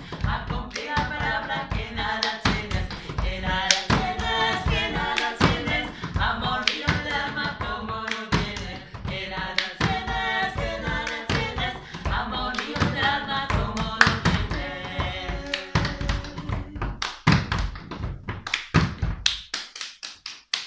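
Three women's voices singing a polyphonic Spanish folk song (panaderas), keeping the beat with hands striking a wooden floor. Near the end the singing stops and a fast run of strikes follows.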